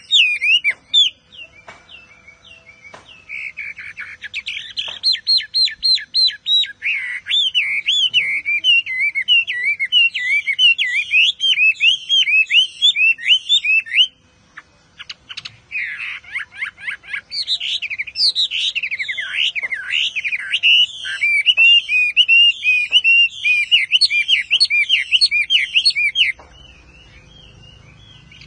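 Chinese hwamei singing a long, rapid, varied song of loud whistles and trills, breaking off briefly about halfway and stopping shortly before the end.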